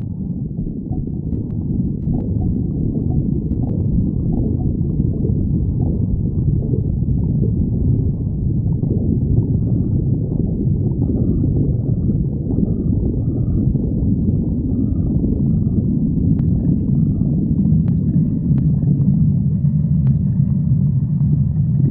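Human stomach growling, recorded close up: a continuous low rumble, with faint higher gurgles coming in over the second half.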